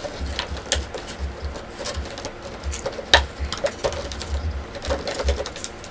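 Irregular sharp clicks and light rustles of hard plastic being handled, with dull low knocks, as a Nendoroid's clear plastic stand is taken off and out of its packaging.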